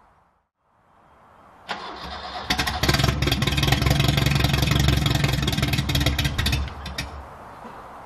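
A 1969 Ford Capri engine is cranked on the starter and catches about two seconds in. It runs loud and uneven for about four seconds, then cuts out near the end: the engine stalls.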